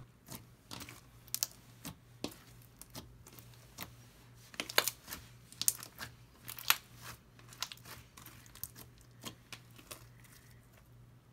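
Fishbowl slime full of small plastic beads being squished and stretched by hand, giving irregular crunchy crackles and pops, most crowded about halfway through.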